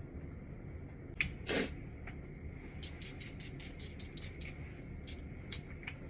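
Small light clicks and taps of makeup items being handled, with one short hissing puff about a second and a half in.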